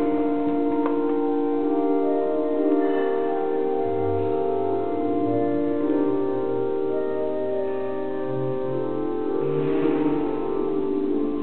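Church organ playing slow, held chords over a bass line that moves from note to note.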